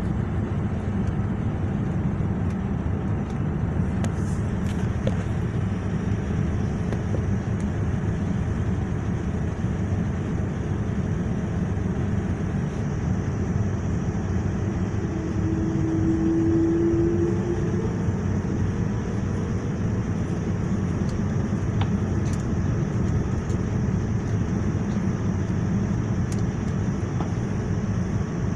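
Steady engine and airflow drone inside the cabin of a Boeing 787 in flight on its descent, a dense low rumble with a faint hiss above it. About halfway through, a short low tone sounds briefly over the drone.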